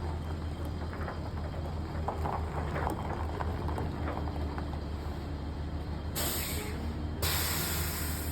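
Heavy diesel engine idling steadily. Two long air-brake hisses come about six and seven seconds in, the second one running on.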